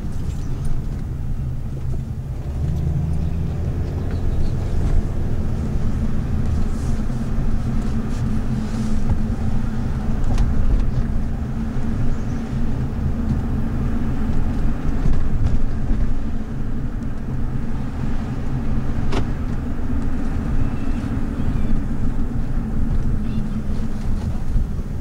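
Car driving, heard from inside the cabin: a steady low drone of engine and road noise. A single sharp click about three-quarters of the way through.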